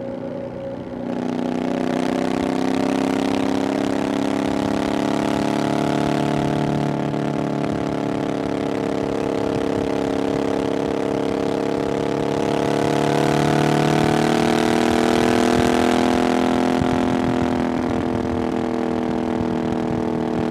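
A Triumph Bonneville Scrambler 900's 900cc parallel-twin engine runs under way through an aftermarket "VW pipes" exhaust. It opens up about a second in, holds a steady note, swells louder past the middle, then eases back near the end.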